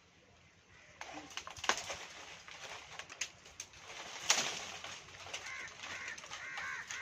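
A run of sharp clicks and crackles starting about a second in, the loudest about four seconds in, then from about five seconds in a bird calling in a quick series of short repeated notes.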